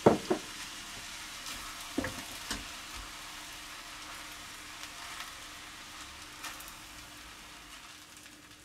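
Spiced rice for kedgeree sizzling in a frying pan on the hob, with a little reserved fish-poaching liquid just poured in. A few sharp knocks of a utensil or jug against the pan come near the start and about two seconds in.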